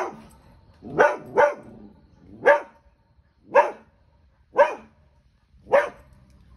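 Border collie barking at a pelican: a run of about seven short, sharp barks, a quick pair about a second in, then one roughly every second.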